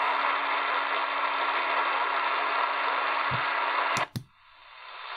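Static hiss from a portable AM radio's speaker, tuned to a medium-wave frequency with no station to be heard, with a steady low tone under it. About four seconds in, the tuning button clicks twice, the sound cuts out briefly as the radio steps to the next frequency, and a fainter hiss fades back in.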